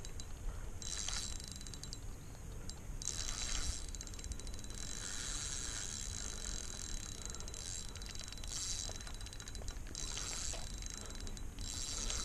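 Spinning reel ratcheting in repeated bursts of fast clicking, the longest lasting a few seconds, as a fish is played on a bent rod.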